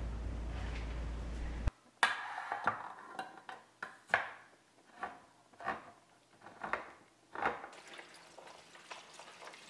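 Metal food cans being handled and opened by their ring-pull tabs: a string of sharp metallic clicks and clanks, roughly one every half-second to second, fading to faint scattered ticks near the end. It is preceded by a steady low hum that cuts off abruptly before two seconds in.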